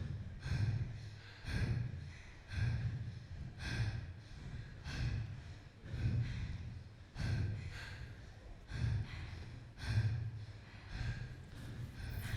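Heavy, rhythmic human breathing, a loud breath about once a second, each one a hiss with a low push under it.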